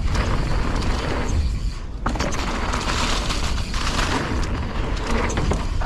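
Strong wind buffeting a helmet camera's microphone, a heavy, steady low rumble, over the clicks and rattle of a mountain bike rolling down a rough trail.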